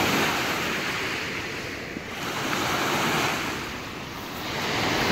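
Small lake waves breaking and washing up a pebble beach, the surf rising and falling every two to three seconds.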